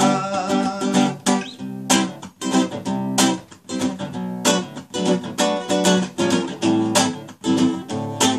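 Classical guitar strummed in a rhythmic pattern, sharp chord strokes with notes ringing between them.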